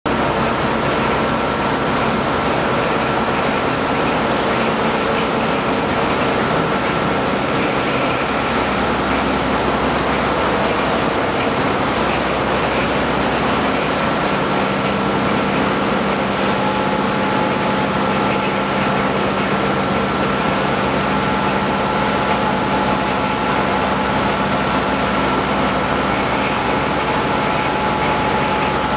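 CNC vertical mill machining a solid billet turntable chassis plate under flood coolant: a steady hiss of coolant spray and cutting over the machine's running hum, with a held high whine, joined about halfway by a lower tone and a second whine.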